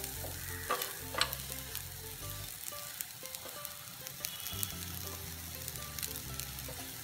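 Freshly grated coconut sizzling in hot oil in a wok as it begins to roast, a steady hiss with scattered small crackles.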